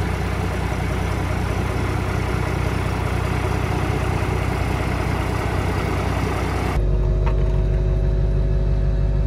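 Truck engine idling steadily. About seven seconds in, the sound changes abruptly to a louder, deeper engine hum.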